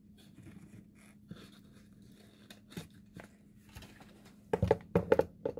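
Small handmade paper gift packaging being handled: soft rustling and faint clicks, then a quick run of louder knocks and clatter near the end.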